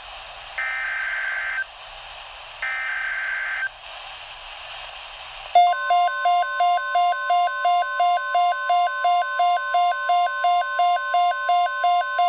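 NOAA Weather Radio EAS activation: two one-second bursts of buzzy SAME header data tone with radio hiss between them. About five and a half seconds in, a steady weather radio warning alarm tone begins, with a harsh beep pulsing over it about three times a second.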